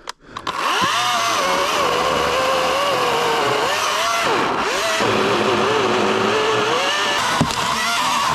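Chainsaw engine running at high revs, its pitch rising and sagging as the chain works through a log. It starts up about half a second in and keeps running.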